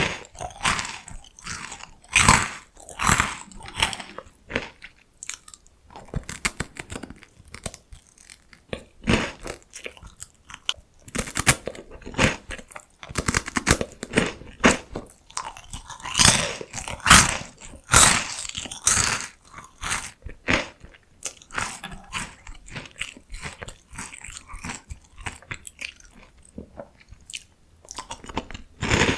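Close-miked crunching and chewing of crispy salty potato-stick snacks (PoStick): irregular sharp crackling bites and chews, coming in denser clusters at times.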